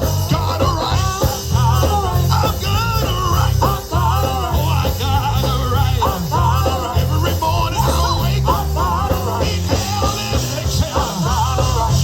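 Gospel band of organ, drums and bass guitar playing an uptempo passage. Quick, warbling organ lines run over a driving drum beat and a heavy, pulsing bass.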